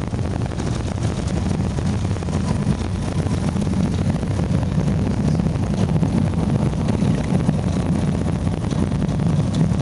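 Single-engine light aircraft's piston engine and propeller heard from inside the cabin, running steadily at low power as the plane rolls along a grass airfield after landing.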